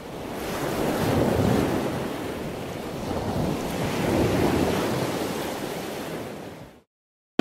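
Ocean surf: a steady rush of waves that swells twice and fades out shortly before the end.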